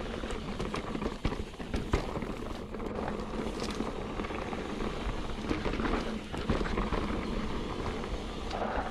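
Mountain bike riding fast down a dirt trail: a steady rush of tyre and wind noise, broken by frequent clicks and knocks from the bike rattling over bumps.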